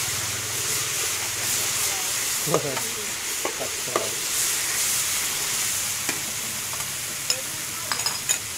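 Sliced beef sizzling in hot oil in a steel wok, with a steady hiss. A metal spatula scrapes and clinks against the wok now and then as the meat is stirred.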